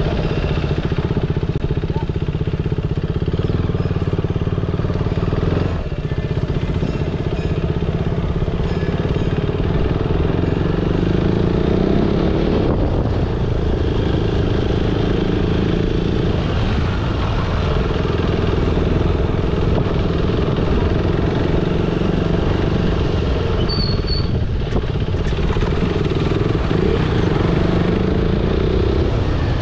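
A motor vehicle's engine running steadily, its pitch rising and falling a few times as it speeds up and slows down, with a brief dip about six seconds in.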